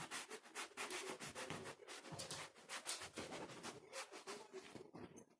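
A pet humping a pillow, its body rubbing and scuffing quickly and unevenly against the fabric.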